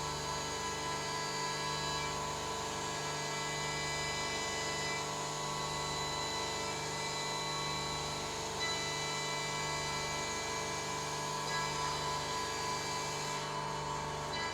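CNC machine spindle running steadily with a whine of several fixed tones, likely milling an aluminium part, with a faint regular throb about once a second.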